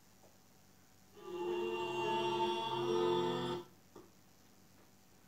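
A short passage of music with long held chords, played from a yoga DVD over the television. It starts about a second in and cuts off abruptly about two and a half seconds later, with a faint click soon after.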